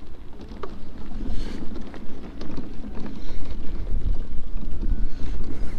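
Wind buffeting the microphone over the steady rumble of an electric off-road mobility scooter rolling across bumpy, muddy grass.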